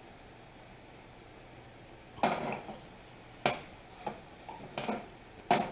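A frying pan and cooking utensil clattering against each other: about five sharp knocks and clinks, starting about two seconds in.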